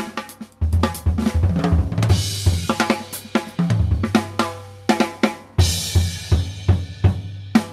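Recorded jazz intro led by a drum kit: busy snare, bass drum and hi-hat hits, with cymbal crashes washing over about two seconds in and again near six seconds, and a low sustained note underneath.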